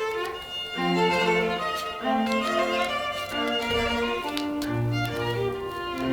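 Music with bowed strings, violin and cello, playing a series of held notes, with a few sharp clicks over it.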